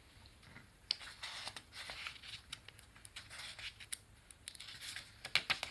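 Paper pages of a sketchbook being handled and turned by hand: faint, irregular rustling and fingers scraping on paper, with a few sharper clicks near the end.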